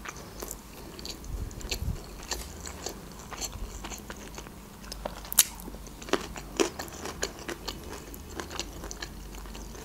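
Close-miked chewing of a mouthful of rice, with many small wet mouth clicks and smacks scattered throughout and a few sharper ones in the second half.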